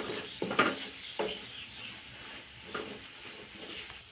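Wooden spatula stirring and scraping sliced onions and gram flour frying in oil in a non-stick pan, over a soft sizzle; the onions are being browned until golden. Three scrapes come in quick succession in the first second and a half, then one more near three seconds.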